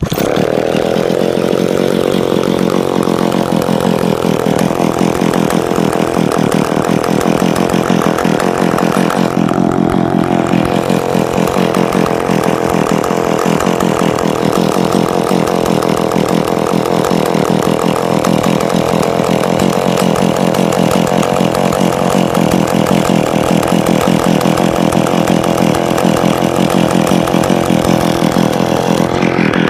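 A vintage McCulloch Pro Mac 700 two-stroke chainsaw starts on the pull and then runs steadily.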